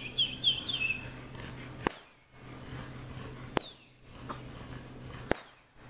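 Puppies giving a quick run of high, squeaky whimpers in the first second, then three sharp clicks, evenly spaced, over a low steady background.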